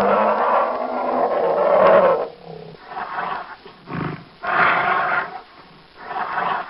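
A bear roaring: one long roar that ends about two seconds in, then a string of shorter growling calls about a second apart.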